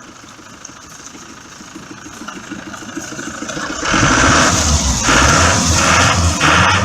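Volvo diesel boat engine idling, then revved sharply in a series of blips about a second apart, starting about four seconds in. It is being revved to blow out carbon deposits during a hydrogen decarbonising treatment.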